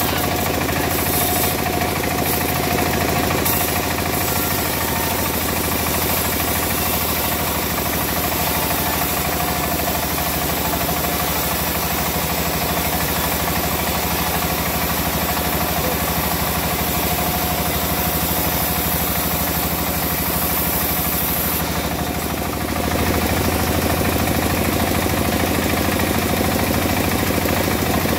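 Engine of a wood-cutting saw running steadily with a knocking beat. About 23 seconds in it grows louder and heavier.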